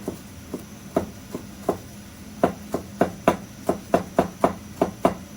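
Kitchen knife chopping on a cutting board: about fifteen sharp strikes, spaced out at first, then quicker, about three a second, from about halfway in.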